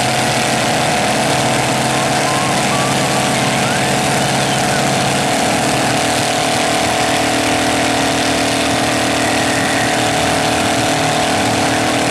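Demolition derby pickup truck engines running hard at steady high revs. There is a change in the low drone about five seconds in.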